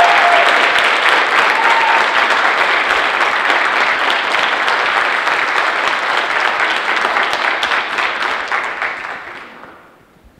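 Audience applauding with dense, steady clapping that dies away near the end.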